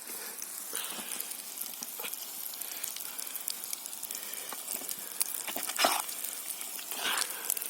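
Carp roe frying in a pan with smoked lard, a steady sizzle, with a couple of sharper sounds near the end about a second apart.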